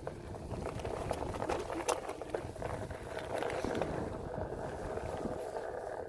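Onewheel Pint X's tyre rolling over a dirt trail, a steady crunching rush with scattered ticks and clicks from twigs and gravel.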